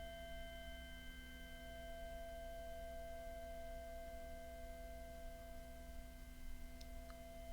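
A meditation drone of steady, ringing tones held at several fixed pitches, like a singing bowl kept ringing, with two faint ticks near the end.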